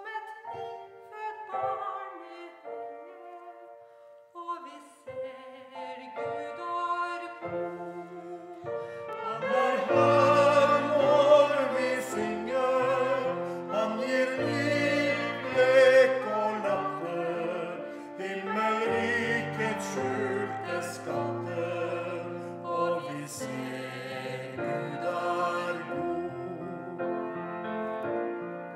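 Hymn sung with grand piano accompaniment. It grows fuller and louder about nine seconds in.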